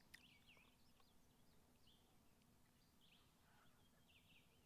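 Near silence with faint bird chirps: short calls repeated every second or so.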